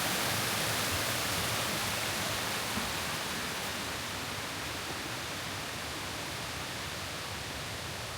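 Steady rush of water from a cascading waterfall, growing slightly fainter over the span.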